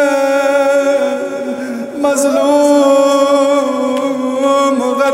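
A man chanting a Shia mourning lament for Imam Husayn in long held, wavering notes. He pauses briefly about two seconds in, then sings another long phrase that ends on the word "mazloom".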